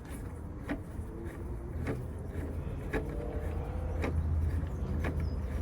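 Hand tool working an M6 bolt into the gear-shift extension, one sharp click about once a second, over a low rumble that slowly grows louder.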